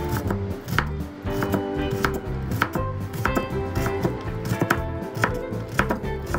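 Chef's knife dicing carrot on a wooden cutting board: sharp knocks of the blade on the board a bit under twice a second. Soft background music plays underneath.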